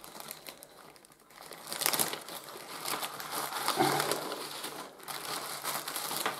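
Clear plastic zip-lock bag and the brown paper wrapping inside it crinkling and rustling as hands open the bag and pull the paper-wrapped bundle out. Faint for about the first second and a half, then louder.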